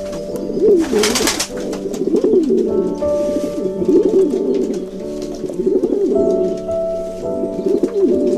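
Pigeons cooing again and again, with low wavering calls, over background music of steady held notes. A brief noisy burst comes about a second in.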